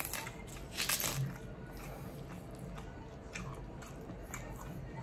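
A crisp raw salad leaf being torn apart by hand close to the microphone, with a sharp crackling crunch about a second in and a few softer crackles after.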